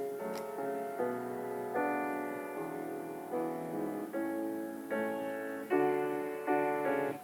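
Piano playing a steady run of chords, each struck and left to ring for about half a second to a second before the next.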